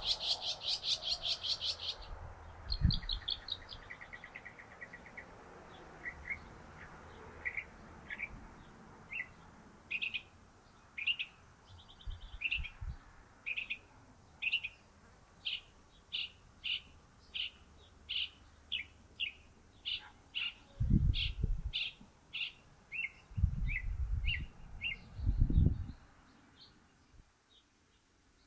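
Northern mockingbird singing: a fast run of high notes at the start, then a long series of short, high repeated notes, about one to two a second, that stops shortly before the end. Several low rumbles break in, the loudest in the last third.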